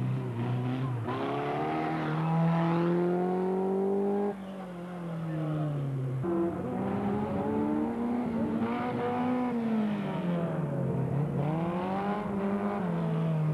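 Formula Ford single-seater's engine revving up and dropping back several times as the car accelerates and slows through tight slalom turns.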